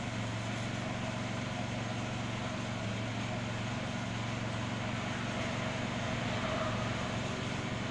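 Steady low hum with an even hiss and no distinct events: workbench background noise.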